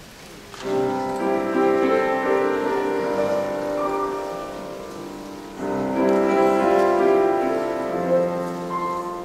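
Steinway grand piano playing the introduction to a Japanese art song. Two chordal phrases enter about half a second in and again about halfway, each one fading gradually.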